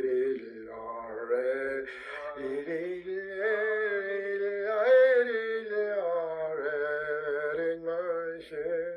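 Unaccompanied solo voice singing a slow song with long held, gently wavering notes.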